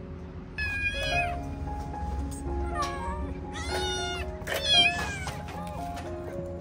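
Kittens meowing, about four high-pitched cries, the loudest about five seconds in, over background music.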